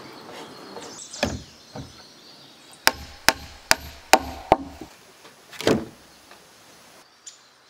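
Hammer striking a log at the top of a log wall: five sharp blows in quick succession, a little over two a second, about three seconds in. There are duller wooden knocks before them and a heavier thud after.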